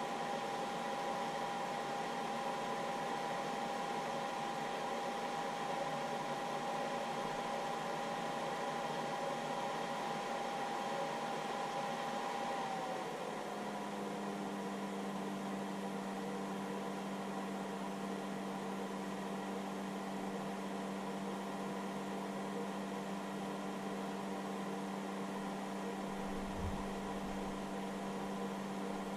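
Hobby battery charger's cooling fan running steadily with a whirring hiss and a thin whine. About halfway through the whine slides slightly lower in pitch and a steadier low hum comes in.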